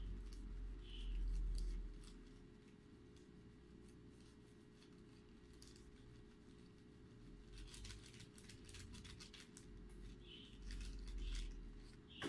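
Faint clicks and rustles of small parts and paper being handled on a workbench, with a quick run of clicks about eight to nine seconds in.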